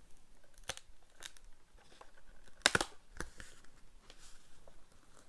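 A paper information card being peeled off the back of a cardboard box set: scattered crackles and tearing of paper, with the sharpest snap about halfway through.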